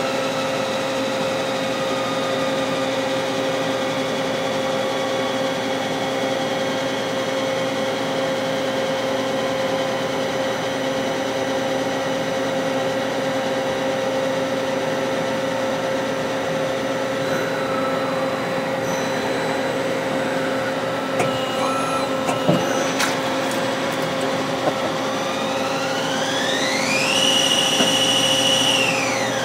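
Hardinge CNC lathe running under power with a steady machine hum, a few sharp clicks, then a rising whine as the spindle speeds up, holds briefly at speed, and winds down near the end.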